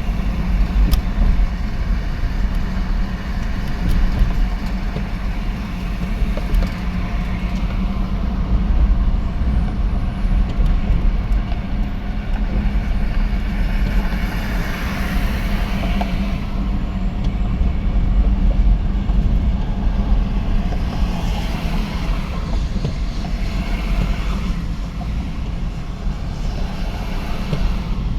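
Steady road noise of a moving car heard from inside: a low engine and tyre rumble under a hiss that swells a little twice, around the middle and again later.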